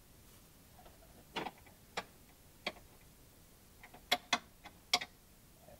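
Irregular sharp metal clicks and clinks as a lawn mower deck hanger and its pin are worked loose by hand: a few spaced clicks, then a quicker cluster of four near the end.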